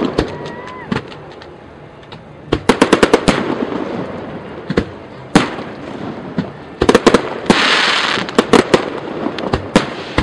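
Fireworks going off in rapid clusters of sharp bangs. Near the two-thirds mark a dense hissing crackle runs for about a second.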